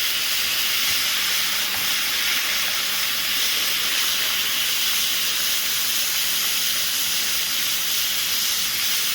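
Battered calamari rings deep-frying in hot oil on a medium-high flame: a steady, even sizzle.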